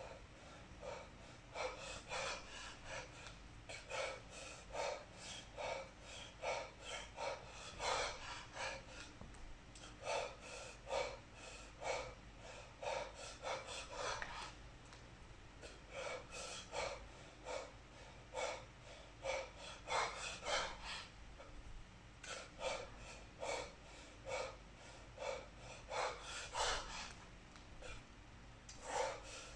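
A kettlebell lifter's rhythmic breathing under exertion during 32 kg snatches: short, sharp breaths, about two a second, in clusters with a few brief quieter spells.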